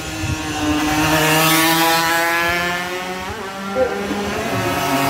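Two-stroke racing motorcycle engines at full race pace: one bike's buzzing exhaust note drops steadily in pitch as it eases off through a corner, then a second bike's note rises as it comes through near the end.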